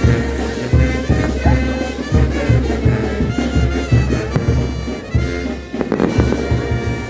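Band music with wind instruments playing a sustained melody over a steady bass drum beat.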